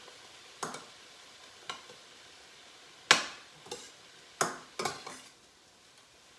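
A cooking utensil stirring sautéing vegetables in a stainless steel frying pan, scraping and knocking against the pan about seven times, the loudest about three seconds in, over a faint sizzle of the frying.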